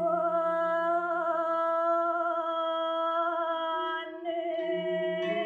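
A woman's voice sings a long held note with a wavering vibrato, breaks briefly about four seconds in and goes on with another held note, over a low steady accompanying tone.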